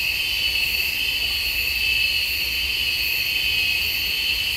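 Steady chorus of insects, a continuous high-pitched shrill drone that does not break or change, over a faint low rumble.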